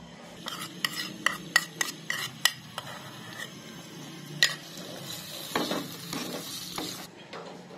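A wooden spoon stirs a spiced yogurt mixture into chicken in a hot non-stick karahi. In the first couple of seconds there is a quick run of sharp clicks as the yogurt is emptied from a steel bowl into the pan, and one more click a couple of seconds later. About five seconds in, the pan sizzles under the spoon for a couple of seconds.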